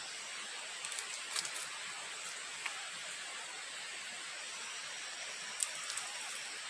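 Wood fire in a stove giving a few sharp crackles and pops over a steady hiss: a cluster a little after a second in, one midway, and two near the end.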